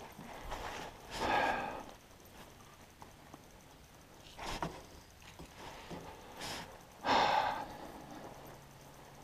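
A man breathing out heavily in two loud sighs, one about a second in and a louder one about seven seconds in, with a few short sharp sounds between.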